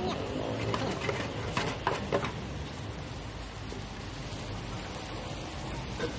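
Egg frying in hot oil in a large wok, a steady sizzle, with metal spatulas clicking and scraping against the pan several times in the first couple of seconds.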